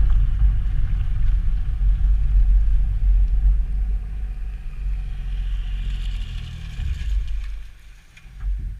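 2002 Nissan Maxima's V6 exhaust running with a deep, low note just after a rev, growing gradually quieter and dropping away sharply near the end.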